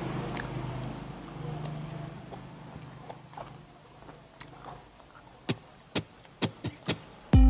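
Background guitar music dies away, then a handful of short, sharp crunching clicks from someone eating. Loud music comes back in at the very end.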